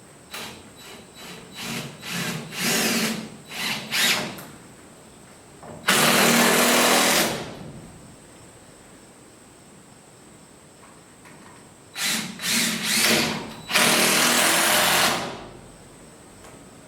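Power drill driving screws: twice, a run of short trigger pulses followed by a steady run of about a second and a half.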